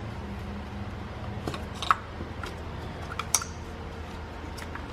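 Plastic electrical connectors being unclipped from ignition coils by hand: a series of short, irregular clicks and snaps over a steady low hum.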